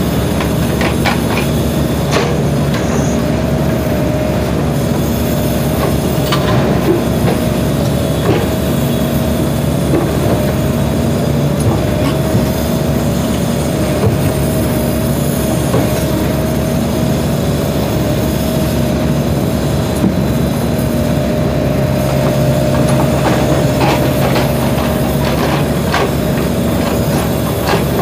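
SANY mini excavator's diesel engine running under working load, with a steady whine and scattered clanks as it digs and swings.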